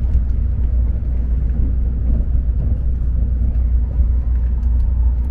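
Steady low rumble of a Shinkansen bullet train running, heard from inside the passenger cabin.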